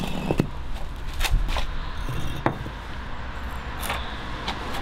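Wind rumbling on the microphone, with a few sharp knocks as a wooden form board is pulled away from the edge of a concrete step.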